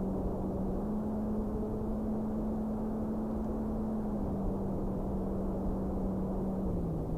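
Electric motor and propeller of a Carbon Cub S2 RC plane running with a steady hum, stepping up in pitch about a second in and back down about four seconds in and again near the end as the throttle changes, over a rush of wind on the microphone.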